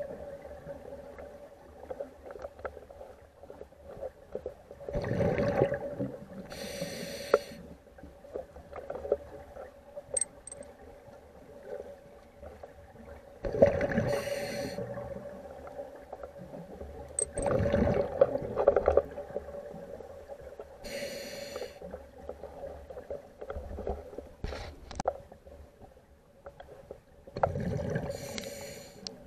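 Ambient sound-art soundtrack: a steady hum under recurring swells of noise, each lasting a second or two, coming about six times with quieter stretches between.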